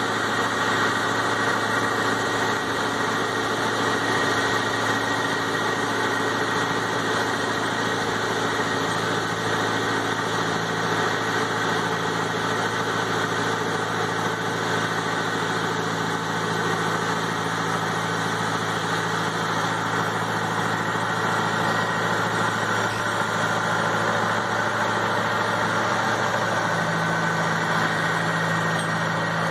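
Tractor engine and the fan heads of a tractor-drawn multi-fan orchard air-blast sprayer running steadily while spraying, a steady hum with a high whine. A further low tone comes in near the end.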